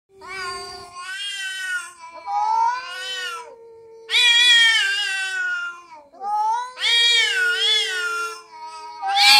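Two cats in a standoff, yowling long, wavering caterwauls at each other, the calls often overlapping: angry territorial yowling before a fight.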